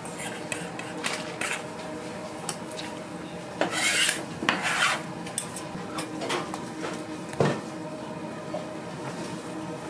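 Kitchen utensils scraping and clinking during food preparation, with two longer scrapes about four seconds in and a sharp knock a few seconds later, over a steady hum.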